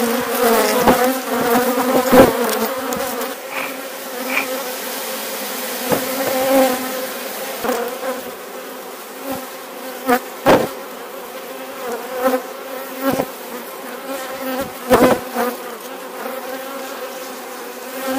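A colony of honeybees buzzing around open hive frames: a dense, steady hum with a slightly wavering pitch, loudest in the first few seconds. A few sharp knocks sound over it.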